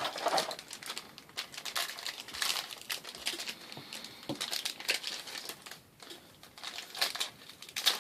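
Foil wrappers of trading-card booster packs crinkling as the packs are opened and the cards handled: irregular rustles and crackles, with a brief lull about six seconds in.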